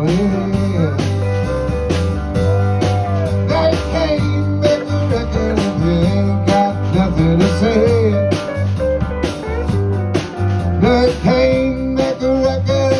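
Live band of electric guitars, bass and drums playing a bluesy country-rock song through a PA. Over a steady drumbeat and bass, a lead line bends up and down in pitch in an instrumental passage without lyrics.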